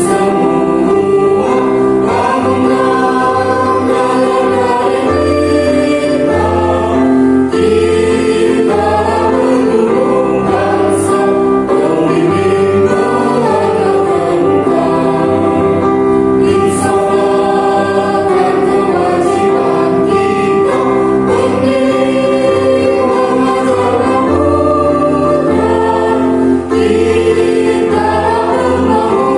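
A choir singing held, stepwise melodic lines over a steady instrumental accompaniment with a low bass line.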